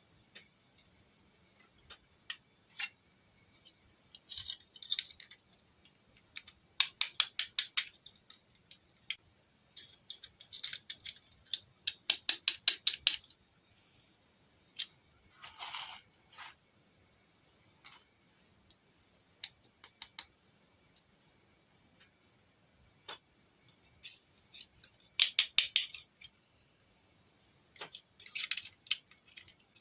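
Small plastic toy parts being handled: scattered sharp clicks and several quick runs of rapid clicking and rattling, with one short rustle about halfway through.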